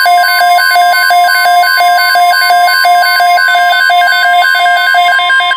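Weather radio alert alarm: the steady NOAA Weather Radio warning tone with a loud, rapid beeping that alternates between a low and a high pitch. It is the alarm that comes before a severe thunderstorm watch announcement.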